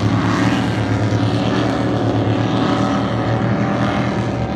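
Speedboat motor running with a steady, even drone.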